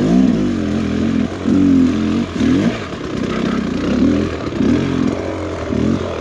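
Two-stroke engine of a Beta X-Trainer 300 dirt bike revving up and down in repeated throttle blips, about six times.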